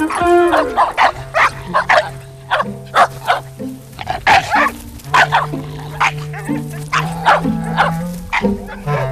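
Dogs barking and yipping in short, repeated barks over background score music with held notes.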